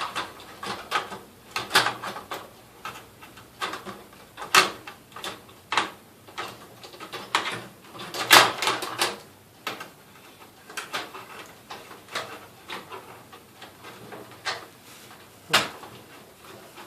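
Irregular clicks and knocks of hardware being handled inside a desktop computer case as a graphics card is fitted, with the loudest knock about eight seconds in.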